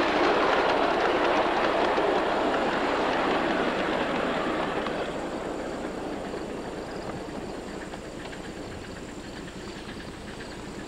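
Ride-on miniature railway freight cars rolling past on the track: a steady rumble and clatter of wheels on rail, loud at first, then fading over the first several seconds as the train moves away. Faint clicking is left near the end.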